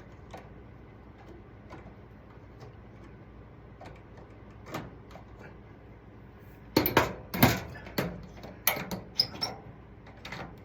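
Plastic-and-metal clicking and knocking as a ballast-bypass LED tube is handled and fitted into the fixture's sockets. Faint scattered clicks come first, then a flurry of loud, sharp clicks and knocks about two-thirds of the way in.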